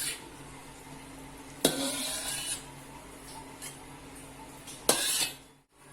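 A metal cooking utensil knocks against a pan twice and scrapes briefly after each knock, over a low steady hum.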